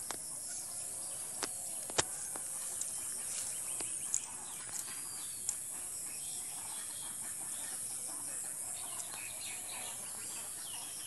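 Chickens clucking now and then over a steady high hiss, with a few sharp clicks, the loudest about two seconds in.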